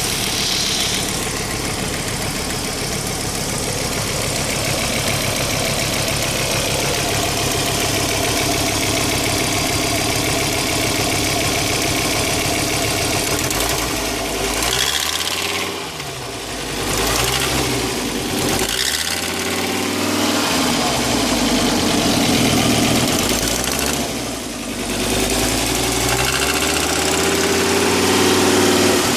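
Fiat Coupé 20V Turbo's five-cylinder turbo engine idling steadily, then revved up and let fall back several times in the second half. It makes odd noises that the owner suspects, without being sure, come from a damaged turbocharger.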